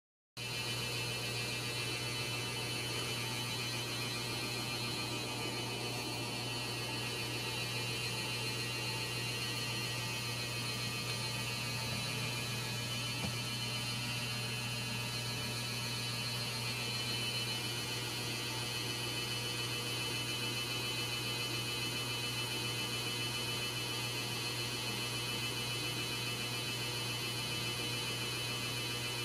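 Steady electrical hum with a thin high-pitched whine over it, unchanging.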